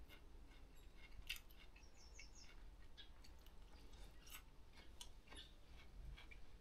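Near silence with faint eating sounds: quiet chewing and scattered small clicks of chopsticks and mouth sounds.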